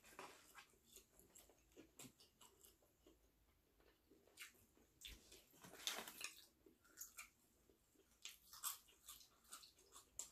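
Faint chewing and crunching of fried chicken being eaten, with scattered soft clicks and light rustles, a few a little louder around the middle and near the end.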